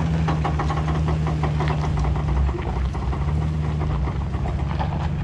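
Ford F-250 Super Duty pickup engine running under heavy throttle, pulling a stuck vehicle out on a recovery strap. The engine note holds steady, eases off about halfway through and picks up again, with a busy rattling over it.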